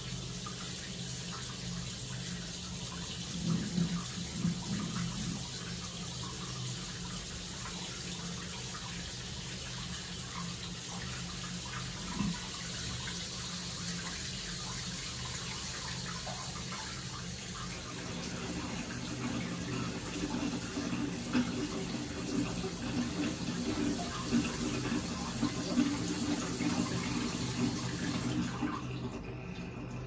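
Tap water running steadily into a bathtub, a constant splashing hiss that stops near the end.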